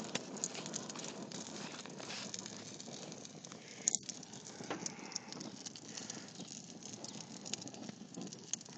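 Hamburger patties sizzling and crackling on a barbecue grill, with scattered sharp pops.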